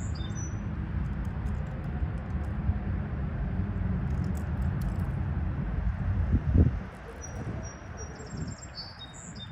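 Small songbirds chirping in short high series, at the start and again over the last couple of seconds, over a steady low rumble; a louder low swell rises and falls about six and a half seconds in.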